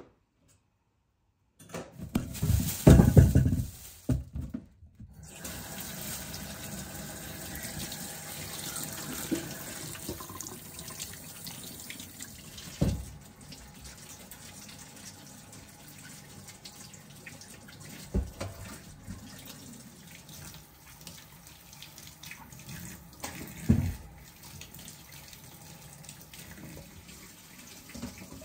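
Kitchen tap running into a sink. It splashes loudly for a couple of seconds at first, then settles into a steady flow, with a few sharp knocks of things handled in the basin.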